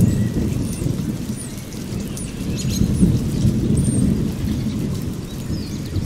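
A low rolling rumble, loudest at the very start, with short high bird chirps scattered over it.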